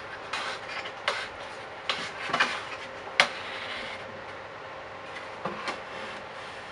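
Marine plywood board being handled on a wooden table-saw top: scraping and a series of irregular knocks as it is slid against the rip fence, lifted and set down, the loudest knock about three seconds in. The saw is not running.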